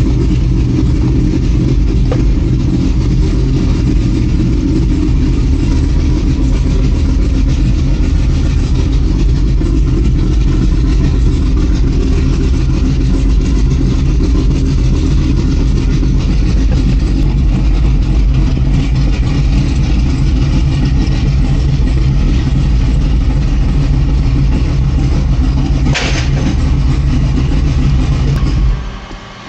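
Chevrolet C7 Corvette Z06's supercharged LT4 V8, freshly fitted with a BTR Stage 2 camshaft, idling with the lumpy, uneven 'chop' of a big cam, heard from inside the cabin. It is running before being tuned for the cam, and it cuts off abruptly near the end when it is shut off.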